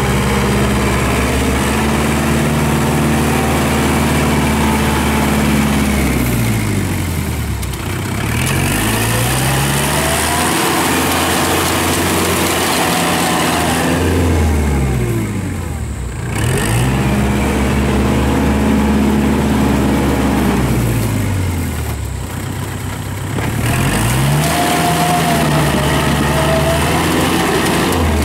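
Kubota tractor's diesel engine running under load while it pulls a disc harrow. Its pitch drops and climbs back up three times.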